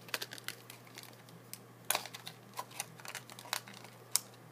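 Earbud packaging being handled and opened: crinkling with scattered clicks and taps, and two sharper snaps, one about two seconds in and one near the end.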